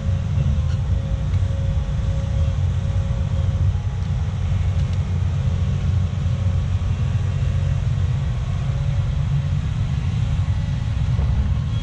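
Diesel engine of heavy earthmoving equipment running steadily under work, a continuous low rumble with a faint steady whine above it.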